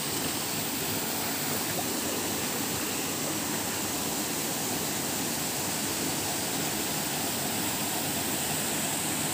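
Steady rush of a small waterfall splashing into its plunge pool.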